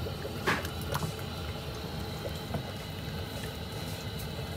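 Hands rubbing seasoning paste onto whole tilapia in a plastic basket: a few soft wet clicks, one sharper about half a second in, over a steady low background rumble.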